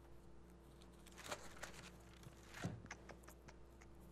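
Faint rustling and a few soft taps of Bible pages being turned at a pulpit, over a low steady electrical hum.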